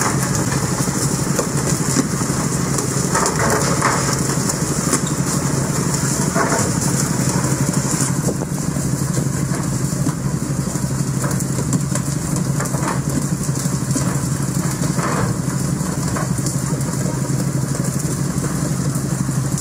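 A fishing boat's engine runs steadily under a constant hiss of spraying and rushing water from the boat's spray system.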